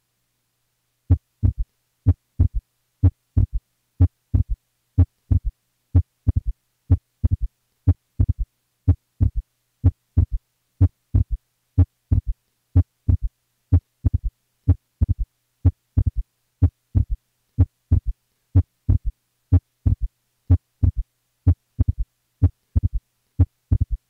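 Heart sounds through a stethoscope at the lower left sternal border, about one beat a second, starting about a second in, changing with the patient's breathing. There is a low-pitched S3, and an S2 that is abnormally split in expiration and splits wider on inspiration: a widely split S2 with a right-sided S3.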